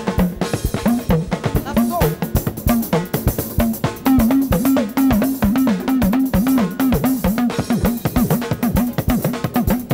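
Live praise band playing a fast, drum-driven dance groove: drum kit and hand drums over a bouncing bass line, with keyboard. The bass line comes in stronger about four seconds in.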